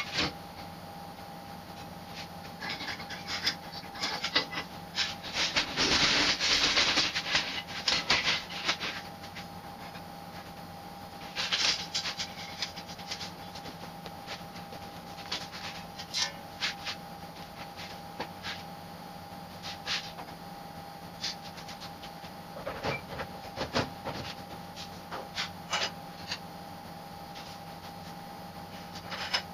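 Scattered clicks, knocks and rustling from hands-on work around a car body on hoists, with a longer stretch of handling noise about six seconds in. A steady low hum runs underneath.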